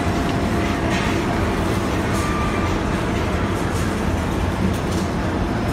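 Steady, low rumbling background din of a shop, with a few faint brief tones and light ticks over it.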